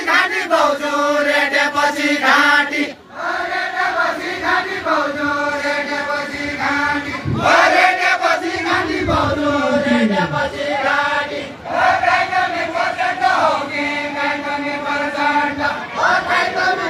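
Deuda folk song sung without instruments, a woman's voice through a microphone with a group of voices joining in, in long held phrases that repeat like a chant.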